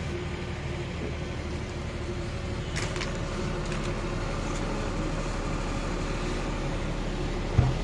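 A steady, low, engine-like hum, with a few light knocks around three to four seconds in and a single sharp thump near the end.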